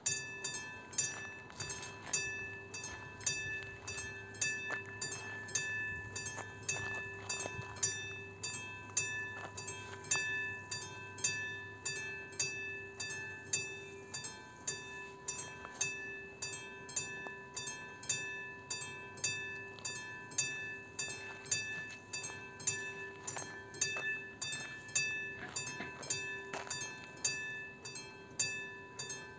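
Level-crossing warning bell on the crossing signal, ringing in evenly spaced metallic strikes, a little under two a second. It starts suddenly and goes on steadily. It is the crossing's warning that a train is approaching, sounding together with the alternately flashing red lights.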